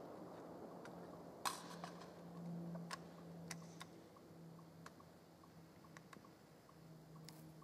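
A rifle shot's echo dies away, then a few faint, sharp metallic clicks from an AR-15 rifle being handled, the loudest about a second and a half in. A faint steady low hum runs underneath.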